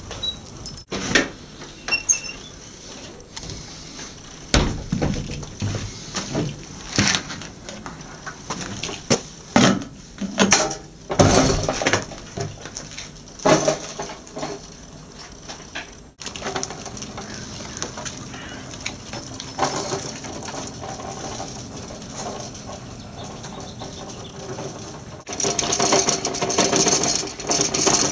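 Replica Auto-ped scooter being handled, with irregular knocks and clatter. About halfway through, a steadier running sound with a faint hum takes over and grows louder near the end.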